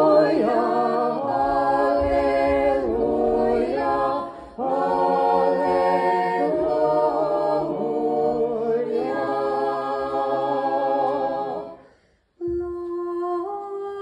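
Church choir singing a cappella: sustained chords that move to a new harmony every second or two, the close of the communion hymn. The singing dies away about twelve seconds in, and after a brief silence a quieter chant begins on held notes that step upward.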